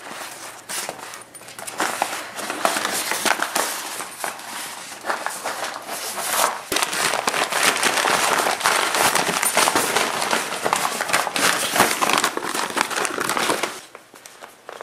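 A puppy opening a gift package: the wrapping crinkles and crackles in a dense, irregular stream, stopping abruptly near the end.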